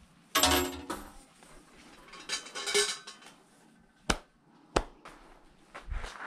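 Metallic clinking and ringing twice, then two sharp hand claps about two-thirds of a second apart: the clap of a worshipper praying at a Shinto shrine.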